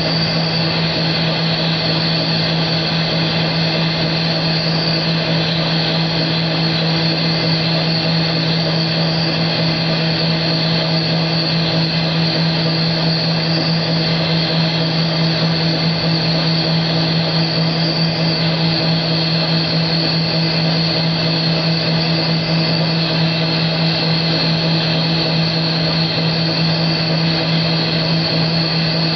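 Large engine lathe running steadily under load while turning the outside diameter of a bronze bushing on a mandrel, the cutting tool peeling off a continuous stream of bronze chips. The sound holds an even hum with a steady high whine and does not change.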